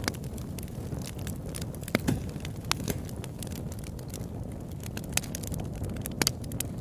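Irregular sharp crackles and pops over a steady low rumble.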